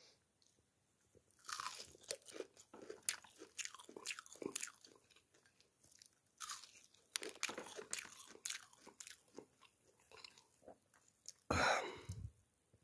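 Close-up crunching and chewing of crisp, batter-fried perch, a quick irregular run of crackly crunches as the crust breaks between the teeth, with a louder burst of noise near the end.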